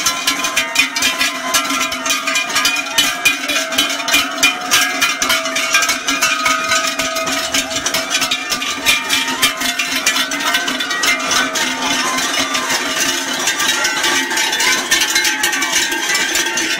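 Many large cowbells on the collars of a herd of walking cattle, clanking and ringing unevenly without pause, with several bell tones overlapping.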